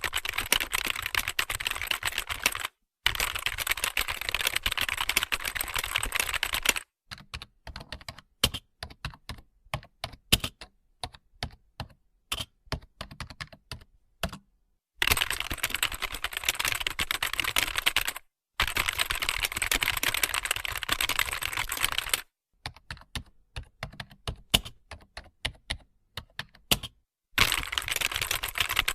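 Typing on a computer keyboard. Stretches of fast, continuous keystrokes alternate with slower, separate key presses, and each stretch starts and stops abruptly.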